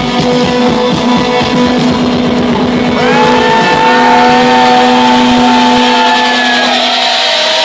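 Electronic dance music played loud in a DJ set. It has a pulsing beat and a held bass note, and about three seconds in, gliding synth lines come in above it.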